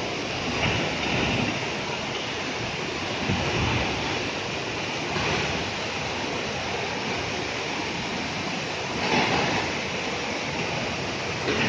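Waterfall water rushing, a steady wash of noise with a few brief louder swells.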